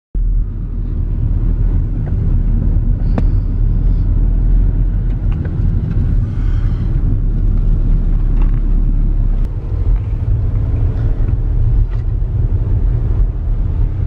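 Car driving along a road, its engine and tyre rumble heard from inside the cabin as a steady low drone. A few light clicks come through it.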